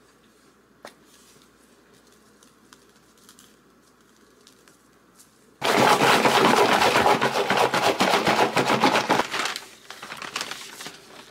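A few faint taps at first. About halfway through, tap water suddenly starts running hard into a bathroom sink over hands being washed, loud and splashy for about four seconds. It then eases off, and a paper bag rustles near the end.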